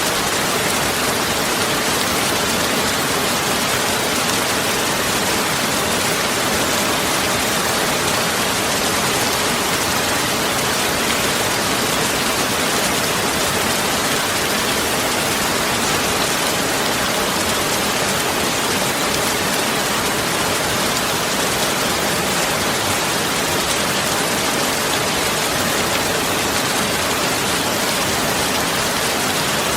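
Steady, unbroken rain-like hiss that holds the same level throughout, strongest in the upper range.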